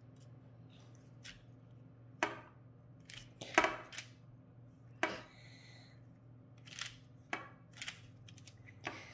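Baking parchment crinkling and light taps on a metal baking tray as raw cookie dough is pressed flat by hand: about a dozen short, sharp sounds at irregular intervals, the loudest about three and a half seconds in, over a faint low hum.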